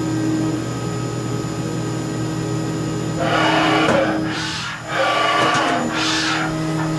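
1998 Haas VF-2 CNC vertical mill running with a steady electrical hum and whine. About three seconds in, the table traverses with two stretches of loud rushing, scraping noise, the second starting just before five seconds.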